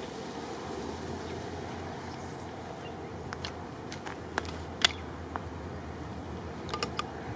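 Steady distant rumble and hiss of a twin-engine jet airliner's engines idling far down the runway, with outdoor air noise. A handful of sharp clicks and taps come from close by, about halfway through and again near the end.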